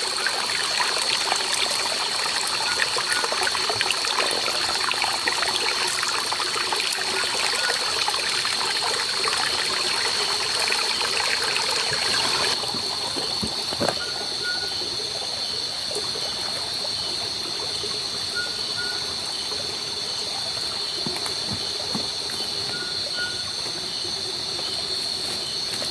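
Stream water trickling and rushing over rocks, with a steady high drone of night insects throughout. About halfway through the water noise drops away sharply, leaving the insect drone and faint short chirps repeating every few seconds.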